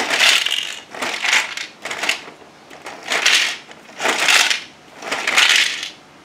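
Bruder toy cement mixer's plastic drum turned by hand, rattling and grinding in six bursts about once a second.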